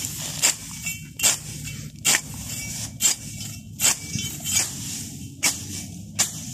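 Machete slashing through tall dry grass: a sharp swishing chop about every second, around eight strokes in a steady rhythm.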